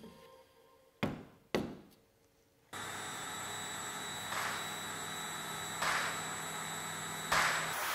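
Two sharp wooden knocks about half a second apart as a CNC-cut plywood gear is handled against the plywood sheet. After a short hush comes a steady low hum with a faint high whine.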